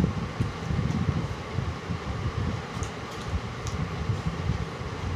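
An electric fan runs steadily, its airflow fluttering on the microphone as a low rumble. A few faint clicks come through as hands mix rice on steel plates.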